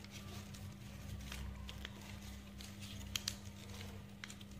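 A sheet of paper being folded and creased by hand: faint rustles and scattered soft clicks and taps, over a steady low hum.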